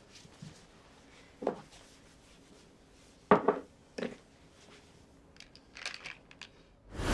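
Small plastic supplement bottles handled and set down on a wooden tabletop among snack packets. A few short knocks, the loudest about three seconds in, then light clicks and rattles near the end.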